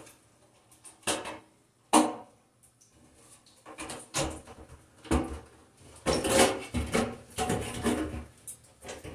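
Broan exhaust fan's sheet-metal housing being handled: two sharp knocks, then a busy run of metallic clunks and rattles as the housing is pushed up into the ceiling opening.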